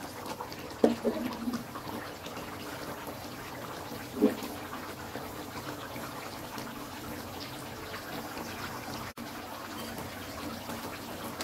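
Thick fish-curry gravy simmering and bubbling in a metal pan on a gas stove: a steady sizzling hiss with small popping bubbles. Two brief louder sounds come about a second in and again around four seconds.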